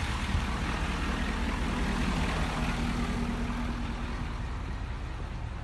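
A vehicle engine idling with a low, steady rumble.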